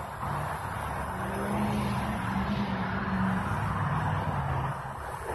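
Car engine running under load as the car pushes a pickup truck bumper to bumper. The engine note rises about a second in, holds, and eases off near the end.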